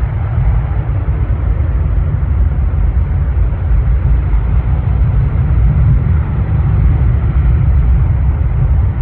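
Jet airliner's engines at takeoff thrust as it turns onto the runway and rolls without stopping: a loud, steady low rumble.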